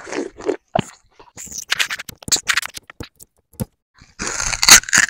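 Sugarcane being bitten, chewed and peeled, with crunching and the rasp of the fibrous rind tearing off in strips. The loudest is a long tearing rasp about four seconds in.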